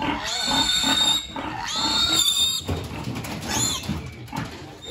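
Piglet squealing loudly while held in a man's arms: two long, high squeals in the first two and a half seconds, then a shorter one about three and a half seconds in.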